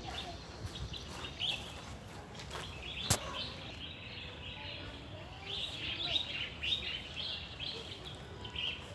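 Small birds chirping, many short high chirps overlapping, growing busier about halfway through. A single sharp click sounds about three seconds in.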